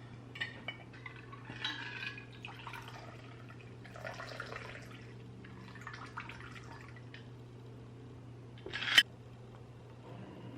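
Quiet handling of glassware while a cocktail is being made: light clinks and soft rustling over a steady low hum, with one short loud noisy burst about nine seconds in.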